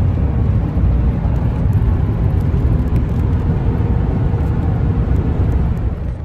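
Steady engine and road noise of a moving pickup truck, heard from inside the cab, mostly a low rumble.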